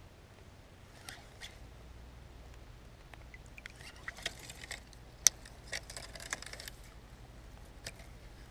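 A fishing lure splashing lightly at the surface as it is reeled in to the kayak's side, with scattered ticks and clicks and one sharp click about five seconds in.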